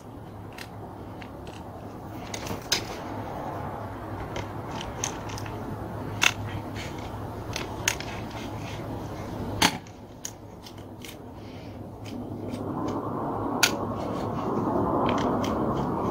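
Scattered small clicks and taps of hands fitting and working the carburetor linkage and choke on a two-stroke chainsaw, over a steady low hum. A rushing noise grows louder over the last few seconds.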